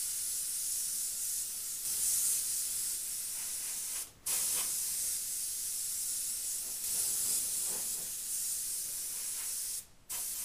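Airbrush spraying paint: a steady, high hiss of air that stops briefly about four seconds in and again near the end as the trigger is let off.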